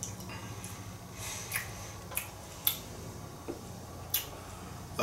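A handful of short, soft mouth noises, small wet smacks and slurps, as a mouthful of white wine is tasted, over a low steady hum.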